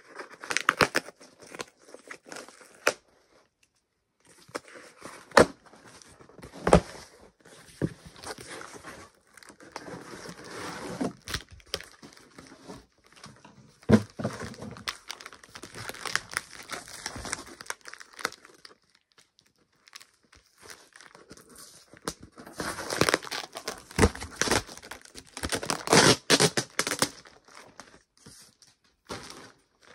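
Cardboard mail packaging being torn open by hand, then a plastic wrapper being handled, with stop-start rustling, crinkling and sharp crackles, busiest near the end.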